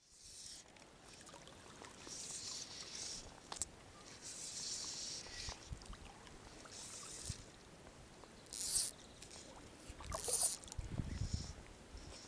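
Water swishing and sloshing around the legs of a person wading in a river, in short irregular bursts, with two sharper splashes a little past the middle.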